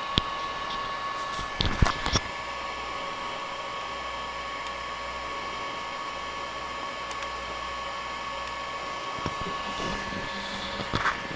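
Ender 5 Pro 3D printer's cooling fans running steadily with a thin steady whine, while the printer sits waiting to start a test print. A few short knocks come about two seconds in, and a low hum drops out about nine seconds in.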